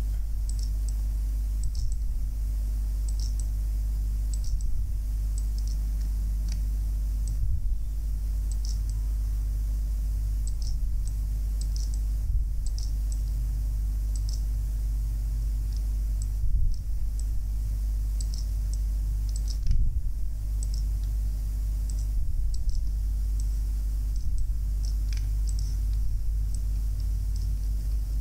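Scattered, irregular clicks of a computer mouse over a steady low hum.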